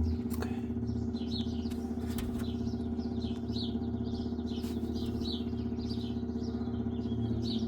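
Oil transfer pump running with a steady hum as it slowly pushes thick gear oil into the bus gearbox.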